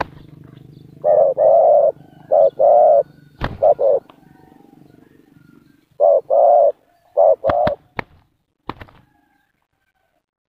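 Spotted doves cooing in short phrases of two or three low notes, repeated several times, with a few sharp clicks between the phrases.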